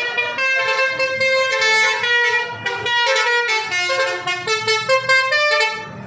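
City bus's multi-tone "telolet" horn playing a quick tune of loud, stepped notes, one after another, cutting off suddenly near the end.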